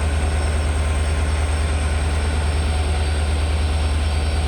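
WDP4D diesel-electric locomotive's 16-cylinder EMD two-stroke engine idling with a steady, deep hum.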